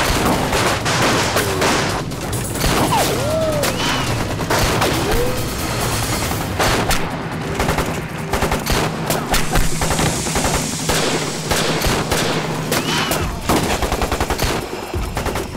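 Dense battle gunfire from rifles, many shots in rapid overlapping succession in a sustained fusillade, with a few short whistling glides in the first half.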